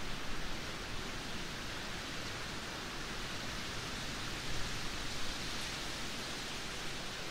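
Steady rain, an even hiss.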